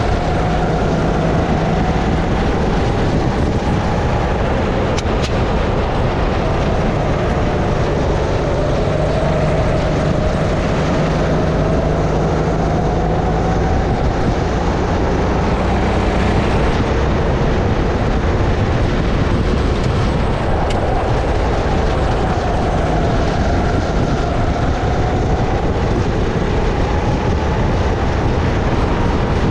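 Sodi RX-8 rental kart's 270cc single-cylinder four-stroke engine running at racing speed, heard from the driver's helmet, its pitch slowly rising and falling over several seconds at a time as the revs climb and drop, over a steady rush of noise.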